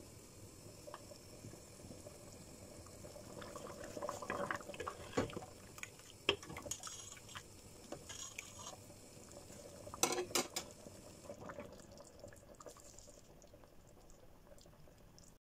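Soup boiling in a large stainless steel stockpot, bubbling steadily, while a metal ladle stirs it and knocks against the pot a few times, busiest in the middle.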